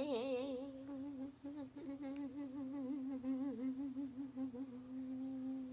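A girl's voice humming one long held note that wavers slowly in pitch.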